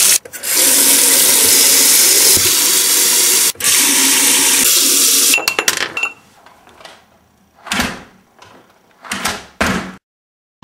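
Water running from a bathroom tap into a sink basin, a loud, steady hiss for about five seconds with a brief break partway through. After it stops, a few short noises follow near the end.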